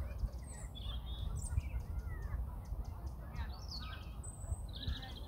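Several birds calling and chirping together, with short twittering notes overlapping throughout and a steady low rumble underneath.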